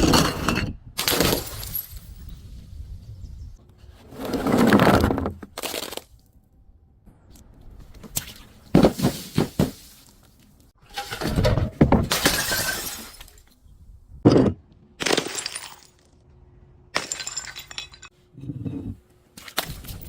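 Glass bottles breaking and being crushed: about a dozen separate crashes of breaking glass, some short and sharp, others drawn out over a second or two.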